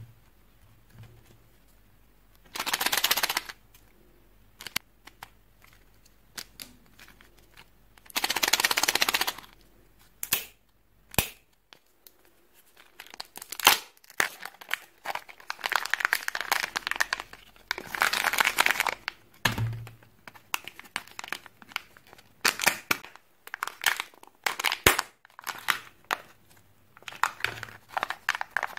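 Kinder Joy eggs being handled and opened: the crinkling and tearing of their foil wrappers and sharp clicks and snaps of the plastic egg shells. Two louder one-second rustling tears come about 3 and 9 seconds in, followed by a long, busy stretch of crinkles and clicks.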